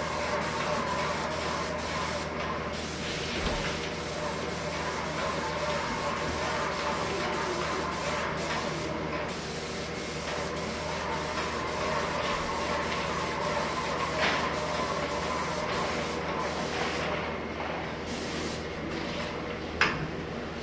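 Airless paint sprayer spraying pre-catalyzed lacquer: a steady hiss from the spray gun that breaks off briefly a few times, over a steady mechanical hum. A single sharp click near the end.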